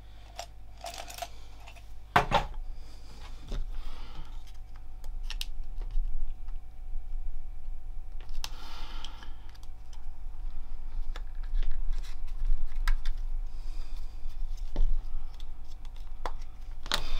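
Irregular plastic clicks and scraping as a Nissan Micra K12 key fob's plastic case is prised apart by hand, with a sharp click about two seconds in.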